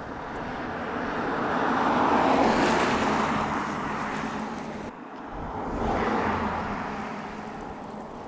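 Mercedes-Benz CLS driving past, its engine and tyre noise swelling to a peak and fading away. The sound cuts off abruptly about five seconds in, and a second pass swells and fades after it.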